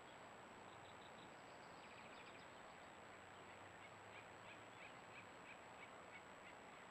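Faint bird calls: short high notes, a brief cluster early and then a regular series of about three notes a second, over a steady hiss and a thin, high-pitched electronic whine.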